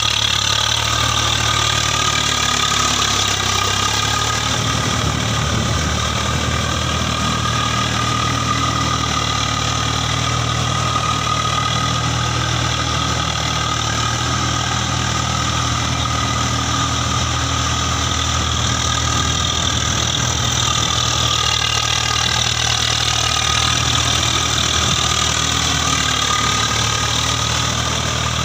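Diesel farm tractor engine running steadily while a rear rotary tiller churns wet mud.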